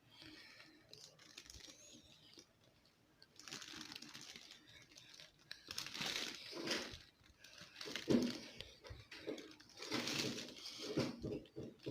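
Crinkling, rustling handling noise in several separate bursts, such as something being squeezed, crumpled or torn during cake decorating.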